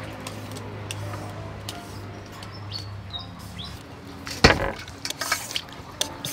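Orange julienne peeler scraping down a green papaya in quick strokes, shredding it into strips, after a single sharp knock a little past the middle. A few short bird chirps come before.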